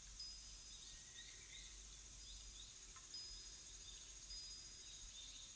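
Faint background of small birds chirping in short rising-and-falling notes and brief high whistles, over a soft high-pitched insect hiss.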